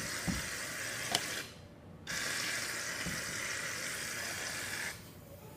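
Aerosol can of foam shaving cream spraying with a steady hiss, in two long bursts: the first stops about one and a half seconds in, and the second starts about half a second later and runs until near the end.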